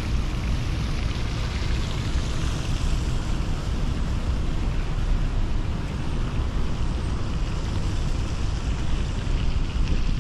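Steady rushing outdoor noise with a strong, uneven low rumble.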